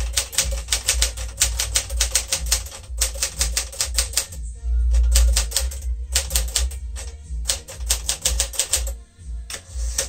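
1959 Smith-Corona Sterling manual typewriter being typed on at a brisk pace: quick runs of sharp key and typebar strikes, pausing briefly twice, with a carriage return at the very end. Low background music runs underneath.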